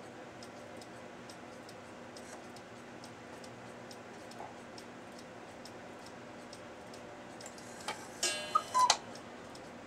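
Mechanical cuckoo clocks ticking steadily; near the end a click and then a single two-note cuckoo call, high then lower, as the clock sounds the half hour while its hands are being set.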